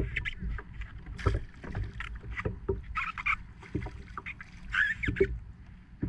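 Irregular knocks and clatters of a landing net's handle and gear against a fishing kayak, with water splashing and a steady low wind rumble on the microphone.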